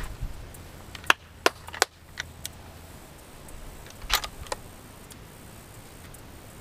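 Sharp metallic clicks of a Tikka T3x bolt-action rifle's bolt being worked between shots: a quick run of about five clicks a little after a second in, then a short rattle around four seconds.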